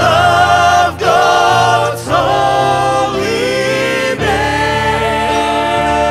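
Worship music: voices singing long held notes over a steady sustained instrumental backing, with short breaks between phrases about one, two and four seconds in.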